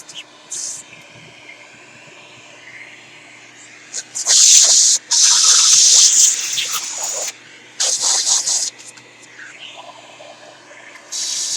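Compressed air hissing from a blow nozzle in short blasts that start and stop abruptly, the longest lasting about three seconds in the middle, as it blows metal filings and dirt out of a car radio chassis.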